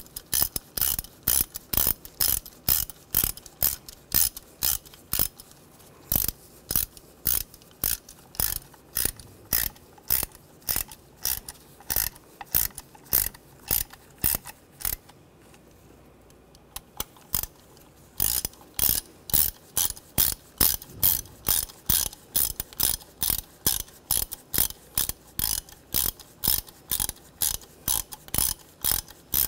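Hand ratchet clicking in an even rhythm, about two or three clicks a second, as it runs down the ignition coil pack bolts. It stops for a couple of seconds about halfway through, then carries on.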